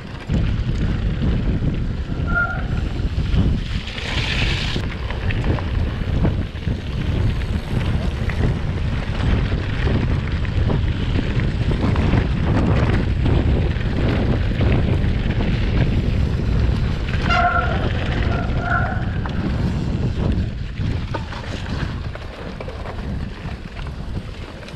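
Wind buffeting the microphone, a loud steady low rumble, with a few short high tones about two seconds in and again about two-thirds of the way through.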